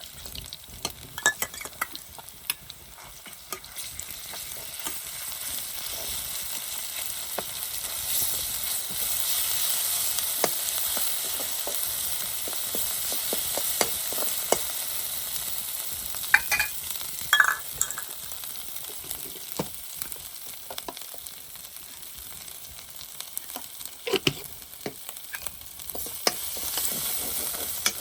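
Food sizzling in a hot pan while it is stirred, with frequent clicks and scrapes of a utensil against the pan. The sizzle swells for a few seconds around a third of the way in.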